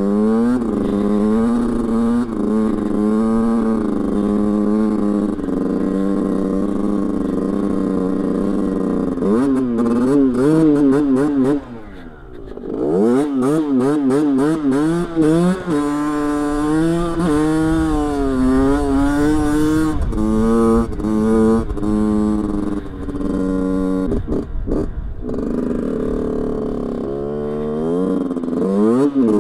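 Rieju dirt bike engine revving up and down, its pitch rising and falling with the throttle as the bike ploughs through deep, soft snow that it sinks into and struggles to gain speed in. About twelve seconds in the engine drops off briefly, then revs up again.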